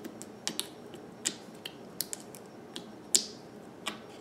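A finger poking and pressing soft slime in a plastic tub, making a run of irregular sharp clicks and little pops, the loudest about three seconds in.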